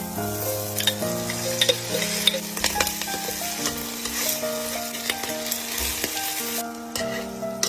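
Food sizzling and frying in a hot pan while being stirred, with sharp clicks of a utensil against the pan. The sizzle stops about a second before the end, leaving background music with a steady melody.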